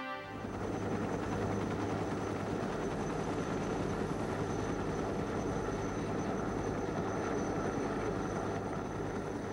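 Helicopter hovering: steady rotor and turbine engine noise with a faint high turbine whine.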